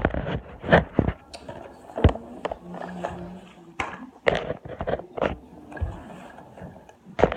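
Handling noises while a hoverboard charger is taken out of its packaging: irregular knocks, clicks and rustling scrapes of cardboard and plastic.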